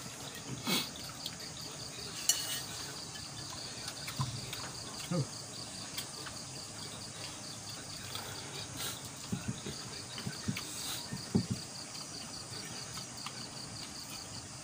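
Steady chorus of night insects, an evenly pulsing chirp, with scattered clinks of dishes and spoons from people eating.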